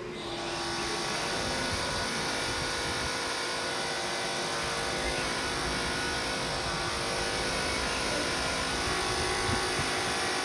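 Copenhagen Metro driverless train approaching on the surface track: steady electric whine of several tones over the hiss and rumble of wheels on rail. It comes up quickly near the start, then holds steady.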